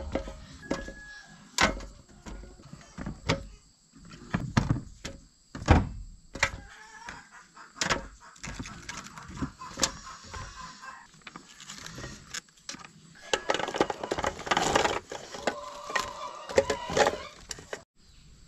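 Vegetables being loaded by hand into an aluminium steamer pot: irregular knocks and thuds of gourds and pumpkin pieces against the metal and each other. The handling is busier and denser in the later part.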